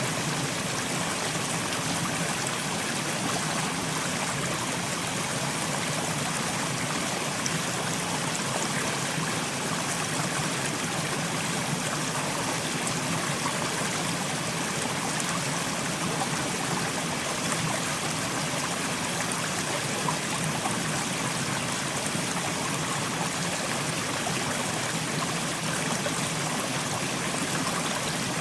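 Mountain stream flowing over rocks: steady rushing and trickling water.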